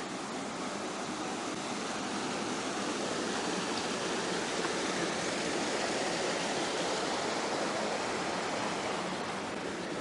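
Water of a small village stream flowing: a steady rushing that grows a little louder around the middle and eases again near the end.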